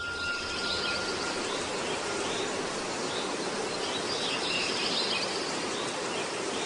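Steady background hiss of outdoor ambience with faint high chirps through it.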